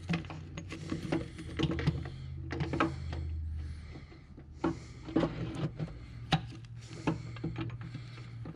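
Irregular clicks, taps and knocks of metal parts being handled and seated as a billet cassette gearbox is fitted into a motorcycle engine, over a steady low hum.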